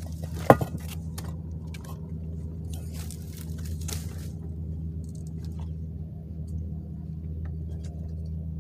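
A steady low motor hum, with clicks and rattles over the first few seconds and one sharp knock about half a second in.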